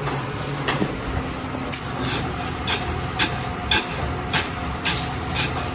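A wooden spatula stirring and scraping dry whole spices in a metal pan, with a steady dry rustle and light knocks of wood against metal every half second or so. The spices are being dry-roasted.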